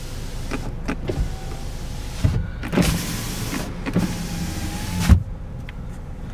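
2014 Ford Escape's driver's-door electric window running on its one-touch automatic function: the window motor whines steadily for about five seconds and stops with a thump.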